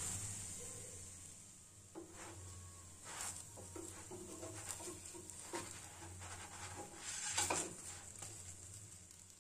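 A wooden spatula scraping and tapping against a nonstick frying pan in a series of short strokes, the loudest about seven seconds in, as a batter pancake frying in mustard oil is pressed and moved, with a faint sizzle of frying.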